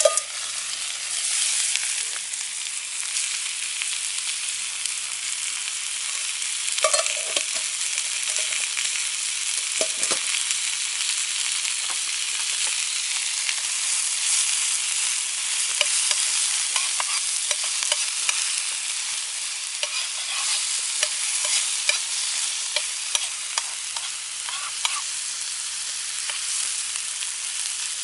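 Chicken and cabbage sizzling steadily in a frying pan, with scattered pops and a few clinks of the pan.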